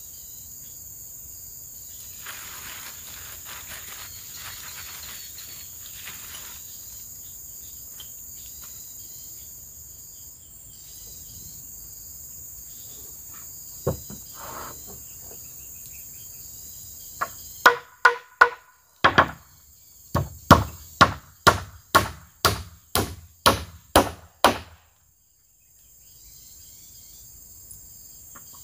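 Steady buzz of insects, then about two-thirds of the way in a run of sharp blows of a hand tool, about two a second, that stops suddenly.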